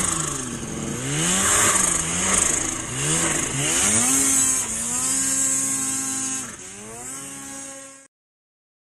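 Supercharged Arctic Cat M8000 snowmobile's 800 cc two-stroke twin revving up and down several times in quick swings under throttle, then held steadier before dropping in pitch. It fades and stops abruptly about eight seconds in.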